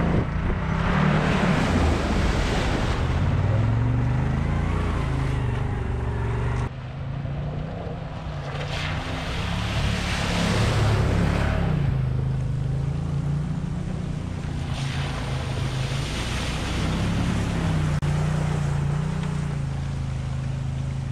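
Can-Am UTV engine revving up and down as it drives through a creek, with several surges of water splashing and spraying off the tyres.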